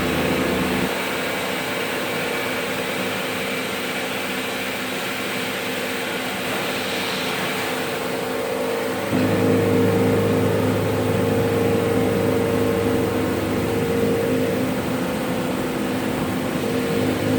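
CNC machine tool running with a steady hum; the lower part of the hum drops away about a second in and comes back, louder, about nine seconds in.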